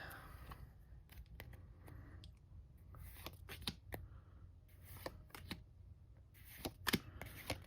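Trading cards being handled and flipped through by hand: faint rustling with scattered light clicks and slides of card on card, a little louder about three seconds in and again near the end.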